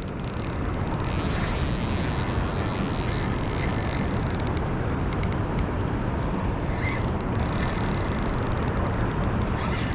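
Steady rush of river water at the Potomac's Dam 4, with a thin high whine laid over it for a few seconds twice.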